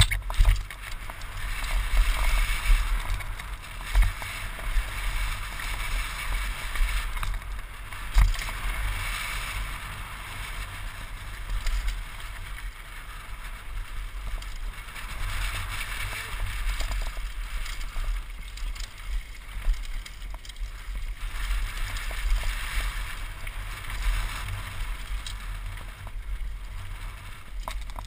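Wind buffeting a helmet-mounted action camera on a downhill mountain bike at speed, over the rush of knobby tyres on dirt and gravel. The bike rattles, with sharp knocks over the bumps.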